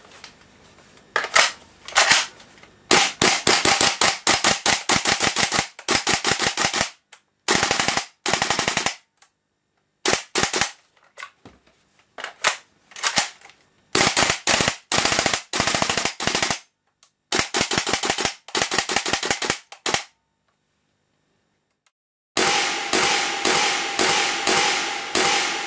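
WE SCAR-L gas blowback airsoft rifle firing, each shot a sharp crack of gas and slamming bolt. A couple of single shots come first, then repeated fast full-auto bursts of varying length with short pauses between them; the rate is raised by a rapid-fire buffer kit that shortens the bolt's travel. Near the end comes a slower run of more widely spaced shots.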